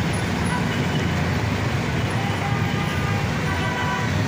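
Heavy, jammed city traffic of jeepneys, motorcycles, tricycles and buses: engines running in a steady low rumble. A few short horn toots sound in the second half.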